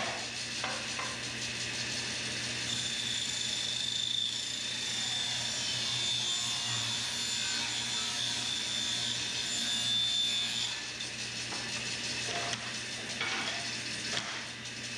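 Contractor-style table saw running with a steady motor hum, its blade cutting through a thin wood panel with a high whine from about three seconds in until about eleven seconds. A few light knocks near the end as the board is handled on the saw table.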